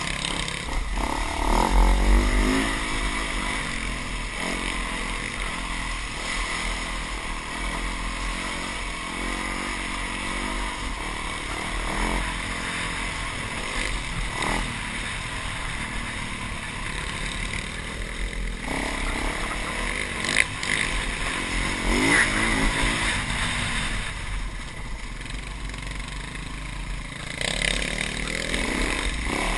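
Dirt bike engine running under the rider, its pitch climbing and dropping several times as the throttle opens and closes, over a steady rush of wind and trail noise.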